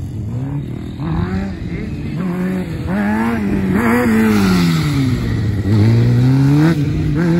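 Sport motorcycle engine revving up and dropping back again and again as the bike accelerates out of and brakes into tight gymkhana turns. Near the end there is a longer climb in revs.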